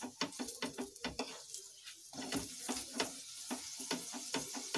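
Oil sizzling under a gobi paratha on a hot tawa as it is oiled and pressed down, with many quick, irregular clicks and scrapes of a utensil against the paratha and pan.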